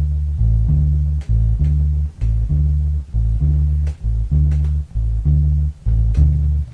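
Music led by a deep bass guitar riff of short, repeated low notes, with a few light percussion hits on top.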